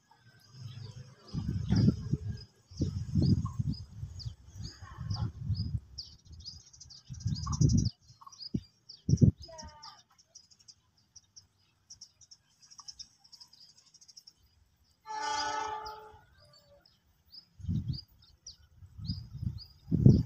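Wind buffeting the microphone in irregular low gusts, with small birds chirping high and repeatedly throughout. About three-quarters of the way through comes a single held pitched call lasting about a second.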